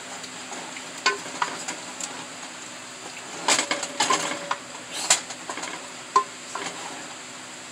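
A spoon stirring chicken and spinach curry in a metal pot, scraping and knocking against the pot several times over a steady sizzle from the cooking curry.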